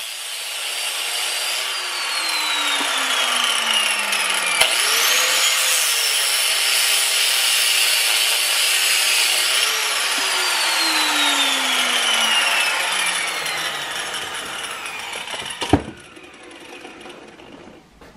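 DeWalt angle grinder grinding into the steel rivets of an old meat cleaver's handle, to take the handle off. The motor's whine sinks in pitch as the wheel bites in and jumps back up twice when it is eased off. Near the end it is switched off and winds down, with a sharp click.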